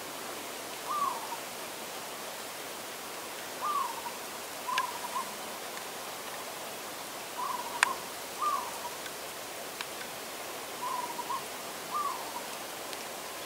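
An animal calling in the distance: short clear notes that drop slightly in pitch, repeating irregularly every one to three seconds, with a few faint clicks between them.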